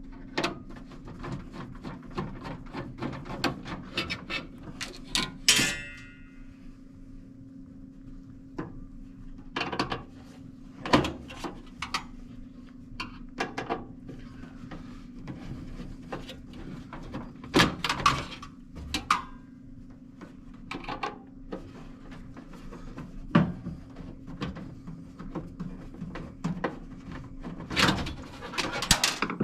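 Irregular clicks, knocks and clanks of hand work on a sheet-metal range hood as screws are taken out and the light panel is worked loose, with a brief metallic ring about five and a half seconds in. A steady low hum runs underneath.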